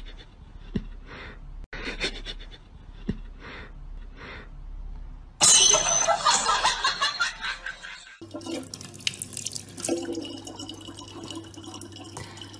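A loud, harsh burst of noise lasting about two and a half seconds. It is followed by tap water running in a thin steady stream into a plastic water bottle.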